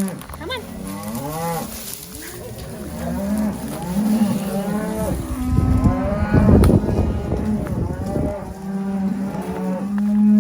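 Cows and calves bawling and mooing over one another, some long steady low moos and some higher calls that rise and fall, as branded calves are sent back to their mothers. A louder rush of rough noise comes about six seconds in.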